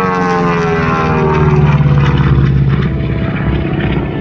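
Twin nine-cylinder Pratt & Whitney R-985 radial engines of a Beechcraft Model 18 running in flight. The propeller drone falls in pitch over the first second and a half, then holds steady.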